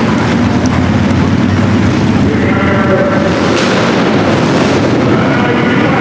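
Several Harley-Davidson police motorcycles' V-twin engines running as the bikes ride past in formation, a loud, steady low rumble with the throttle rising a little now and then.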